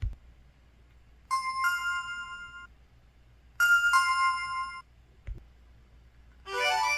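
EVER EV-W530 mobile phone system tone, a short two-note electronic chime stepping up in pitch, played twice from its Qualcomm CMX 72-voice sound chip. Soft clicks come before each chime, and a different, busier run of notes begins near the end.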